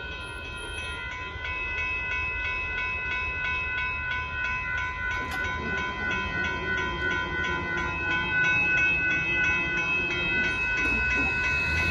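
Railroad crossing warning bell ringing with rapid, evenly spaced strokes as the gates lift after the train has cleared, stopping near the end; a low rumble runs underneath.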